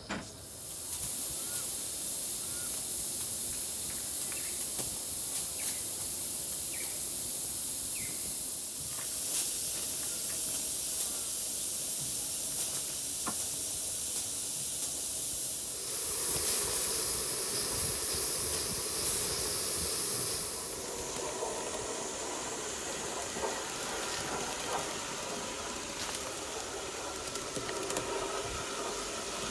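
Alcohol-fired Gauge 1 live steam model of a JNR C57 locomotive hissing steam steadily. About two-thirds of the way through, the high hiss eases and a rougher rushing sound takes over as the engine gets under way on the track.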